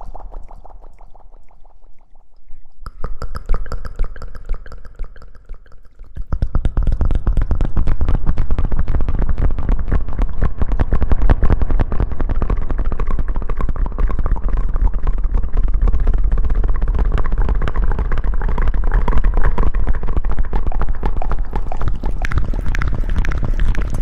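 ASMR mouth sounds made into a cupped hand right at the microphone: a fast, dense run of wet clicks with a low rumble. It is sparse and quieter at first, then turns loud and continuous from about six seconds in.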